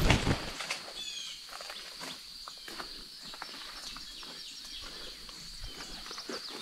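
Footsteps crunching through woodland leaf litter and brush, with a loud bump at the very start, under a steady high-pitched insect drone. A few short bird chirps about a second in.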